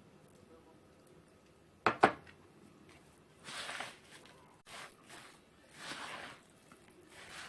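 Crushed wafer crumbs and condensed milk being stirred in a bowl: two sharp knocks about two seconds in, then several short scraping swishes of the sticky mixture.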